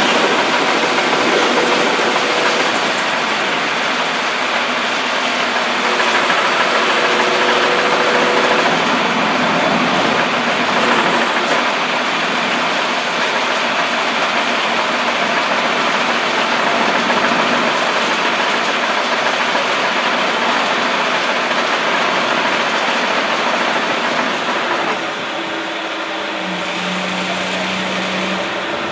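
A river ferry's engine runs steadily under a broad rushing noise, easing a little about 25 seconds in.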